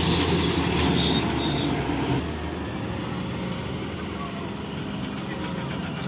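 Combine harvester's diesel engine running steadily with a deep hum. It is louder for the first two seconds, with a faint high mechanical whine, then drops somewhat as the machine moves off.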